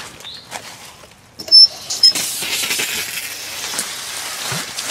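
Water bursting from the open end of a garden hose fed from an outdoor hose bib: a short loud sputter about a second and a half in, then a steady hiss of water spraying onto dry leaves. The hose is being run to flush debris out of a freshly repaired water service line.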